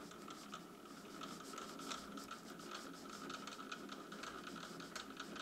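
Faint scratching with light irregular ticks as a lathe's three-jaw chuck is turned slowly by hand, with a dial gauge running on the cast iron crank to check that it runs true.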